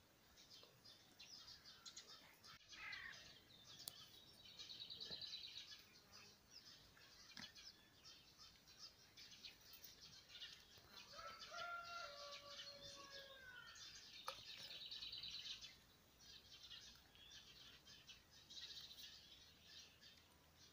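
Faint birdsong: short high trills repeat several times, with a longer, slightly falling call about halfway through.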